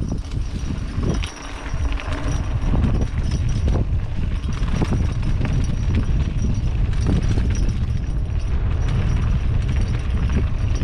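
Mountain bike descending a dirt trail: wind buffeting the microphone with a heavy rumble, and the bike rattling and knocking over bumps throughout.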